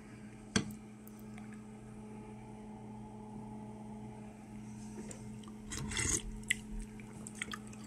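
A spoon clinks once sharply against a bowl of soup, then about six seconds in comes a short bout of scraping with small clicks as a spoonful is taken, over a steady low hum.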